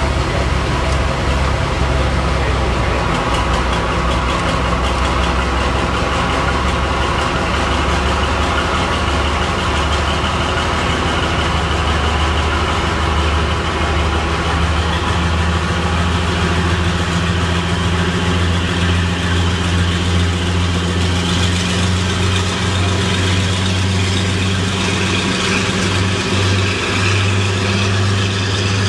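Mainline diesel locomotive's engine running steadily as it pulls slowly away from the platform with a train of coaches, the engine note strengthening in the second half.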